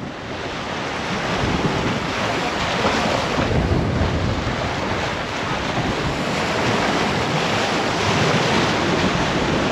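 Wind buffeting the microphone over the steady rush of open-ocean water around a sailboat under way. It builds over the first second or two, then holds.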